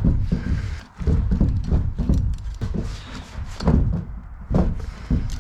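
Hand tools working the 12 mm bolts on a Honda S2000 differential housing: irregular metal knocks and clicks as the bolts are broken loose.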